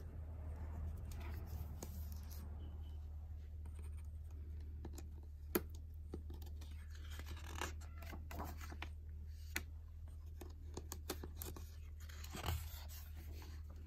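Pages of a hardcover picture book being handled and turned: paper rustling and sliding, with scattered light taps and clicks, the sharpest about five and a half seconds in and a longer page-turn rustle near the end.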